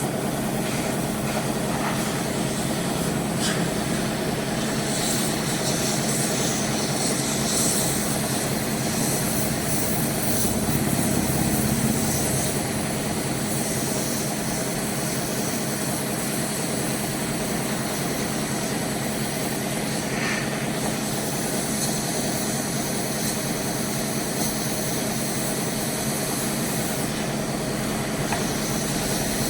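A small electric motor and fan running steadily with a whirring, blowing noise and a low hum that does not change.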